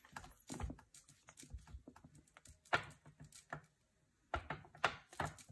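A spatula scraping and tapping thick chocolate mousse into a piping bag: irregular soft knocks, scrapes and plastic rustles, loudest about three seconds in and again near the end.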